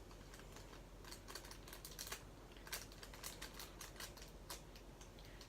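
Faint, irregular light clicks and taps of small objects being handled, a few a second.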